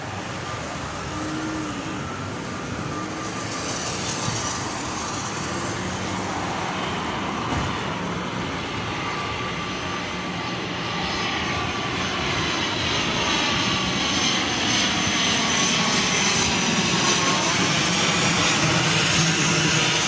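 A low-flying airplane passing overhead: a steady engine noise that grows steadily louder, with a high whine building in the second half.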